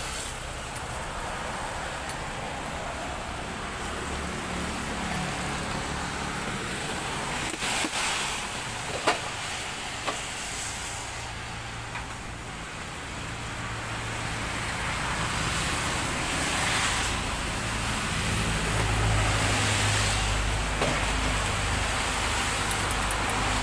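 Steady street noise with traffic, a low vehicle rumble swelling in the second half, and two sharp clinks of utensils around the middle.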